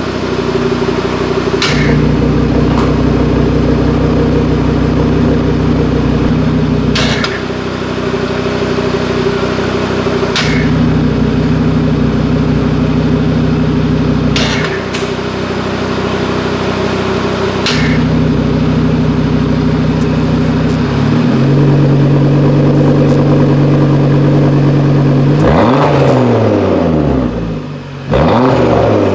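Cupra Formentor VZ5's 2.5-litre turbocharged five-cylinder idling steadily through an Akrapovic Evolution titanium exhaust with its exhaust flap closed. Near the end it is revved up and down several times against a standstill rev limit of 3,500 rpm.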